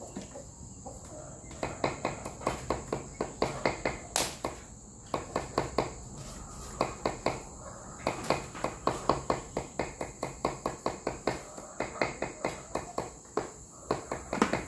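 Knife chopping raw buffalo meat on a chopping board to mince it for larb, in quick runs of about four or five strokes a second with short pauses. Steady high insect trilling runs behind.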